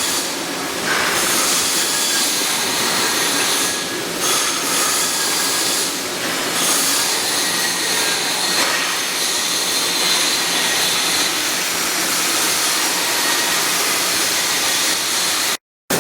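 Welding arc on carbon-steel pipe, a steady hiss that breaks off briefly near the end.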